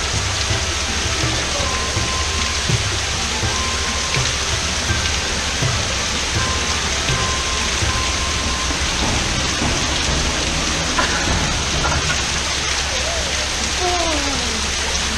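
Small waterfall pouring down a rock wall into a shallow foot-bath pool: a steady splashing rush of falling water.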